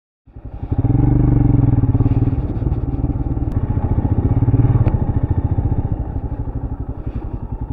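Royal Enfield Scram 411's single-cylinder engine running under throttle as the motorcycle rides, a steady rapid beat of exhaust pulses. It fades in at the start and eases off a little from about five seconds in.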